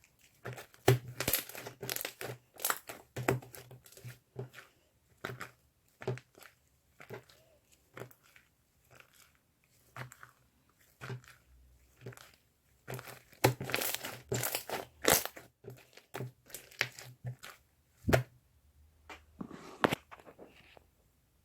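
Irregular close-up crackling and crinkling: a run of sharp little pops and rustles, coming in clusters with short pauses, busiest about thirteen to fifteen seconds in.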